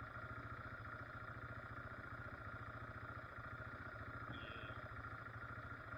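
Yamaha ATV's air-cooled single-cylinder four-stroke engine idling steadily at rest, its quick firing pulses even throughout.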